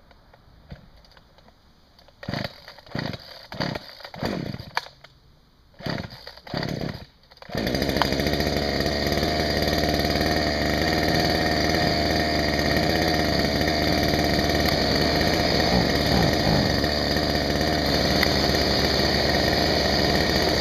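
Chinese-made copy of a Husqvarna two-stroke chainsaw, with no clutch or sprocket fitted, being pull-started: several short bursts from the pulls, then it catches about seven seconds in and runs steadily.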